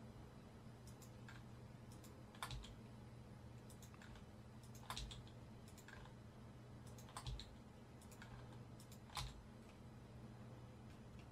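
Computer keyboard keys and mouse buttons clicking, with the F key pressed several times. There are about four sharper clicks roughly two seconds apart and fainter ticks between them, over a low steady hum.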